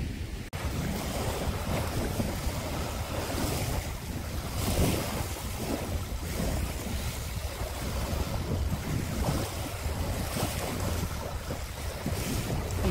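Wind buffeting the microphone over small waves washing in on a shallow sandy shore, a steady rushing noise with a heavy low rumble.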